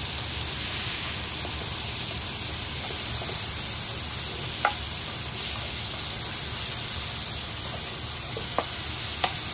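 Food sizzling steadily in a hot frying pan, with a few sharp pops, one about halfway through and two near the end.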